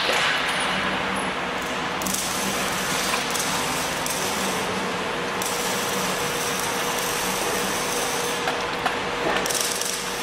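Ratchet wrench clicking rapidly while bolts are tightened at the foot of a steel lift post, over steady workshop noise with a faint steady hum.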